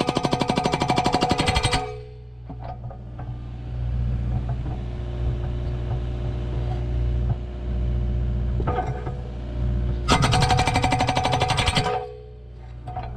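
Okada hydraulic breaker on a Kubota KX057 compact excavator hammering concrete in two bursts of rapid, even blows: the first stops about two seconds in, and the second starts about ten seconds in and lasts about two seconds. Between the bursts the excavator's diesel engine runs steadily.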